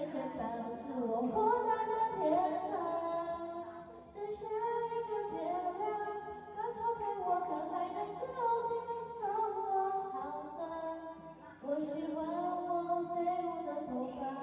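Background pop song with a woman singing a slow melodic vocal line over the accompaniment.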